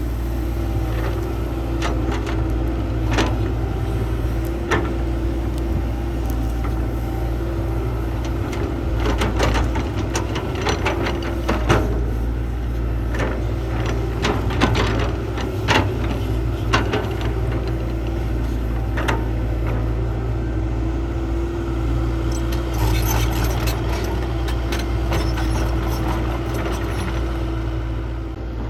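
Heavy construction machine's diesel engine running steadily, with many scattered metallic clanks and knocks, thickest in the middle stretch.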